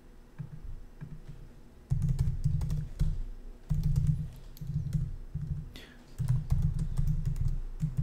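Typing on a laptop keyboard: runs of quick keystroke clicks over a dull low thudding, in bursts with short pauses.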